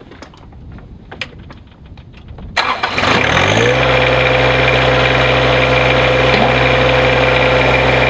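The three-cylinder Yanmar diesel of a John Deere 1026R compact tractor starting up about two and a half seconds in: it catches at once, rises in pitch for about a second and settles into a steady run. Before it, a few light clicks and knocks as the driver climbs into the seat.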